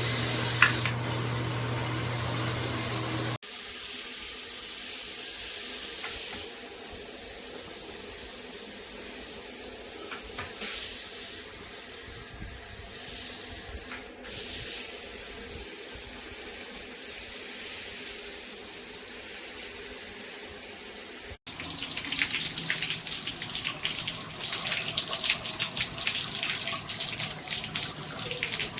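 Water running from a handheld filtered shower head, a steady rush of spray. The sound changes abruptly twice, about three seconds in and again about two-thirds of the way through, ending in a louder, crackling spatter of water hitting a surface.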